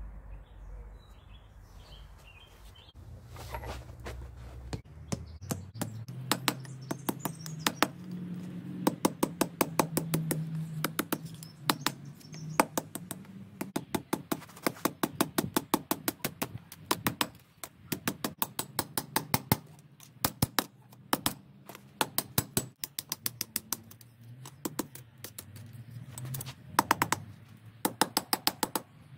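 Hand hammer striking red-hot steel on an anvil: a rapid run of sharp blows, about three a second, starting about three seconds in and broken by a few short pauses. The hot bar is being bent over the anvil horn and forged into a ring.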